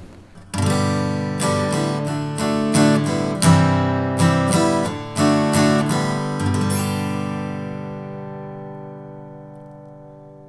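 Closing music on acoustic guitar: a short phrase of plucked notes starting about half a second in, ending on a chord that rings out and slowly fades.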